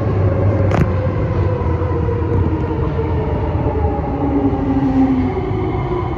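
SMRT C151C electric metro train running into the station, a steady rolling rumble under several electric motor whines that slowly fall in pitch as it slows. A single sharp click sounds about a second in.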